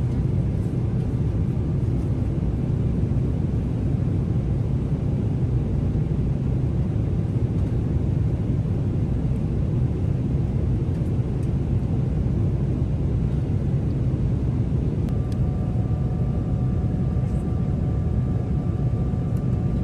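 Steady cabin noise of a Boeing 777-300ER airliner at cruise: a constant low rumble of engines and rushing air. A faint steady high tone joins about fifteen seconds in.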